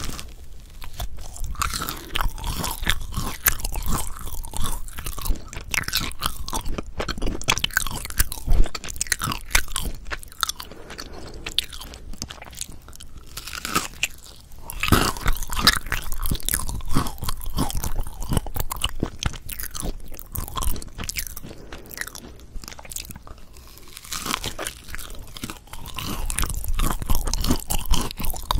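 Close-miked eating of a Korean potato bread: bites into the soft bun with its mashed-potato filling, then moist, sticky chewing with dense crackling clicks. There is a fresh, louder bite about halfway through.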